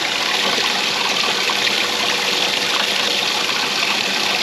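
An 800 gallon-per-hour livewell pump running, its aerating sprayer sending a steady splashing stream of water into a cooler livewell that holds a little water.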